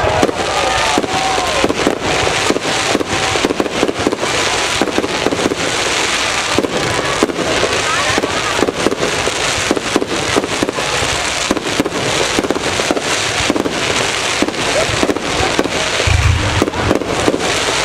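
Fireworks display: a dense run of rapid pops and crackles from shells bursting overhead, with a low thump about sixteen seconds in.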